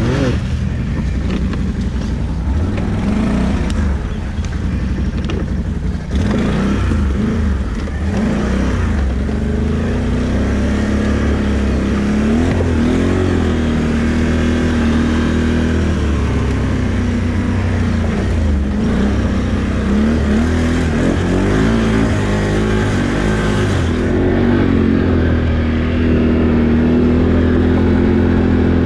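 ATV engine running hard, its revs rising and falling again and again as the throttle is worked over rough ground.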